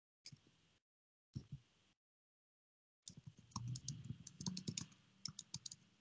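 Typing on a computer keyboard: two brief bursts of keystrokes, then a quick run of key clicks from about three seconds in.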